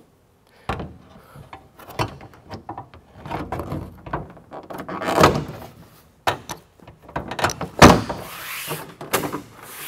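Grille shell knocking and its retaining clips snapping into the front of a Ford F-150 as it is pressed into place by hand: an irregular series of thuds and clicks, the loudest about eight seconds in.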